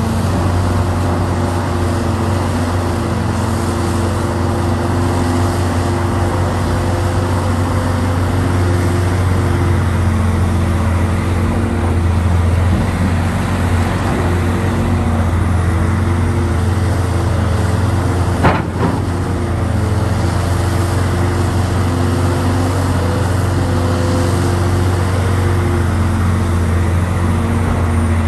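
Hitachi Zaxis 670 excavator's diesel engine running steadily under digging and swinging load, a low hum with a constant pitch. A single sharp knock comes about two-thirds of the way through.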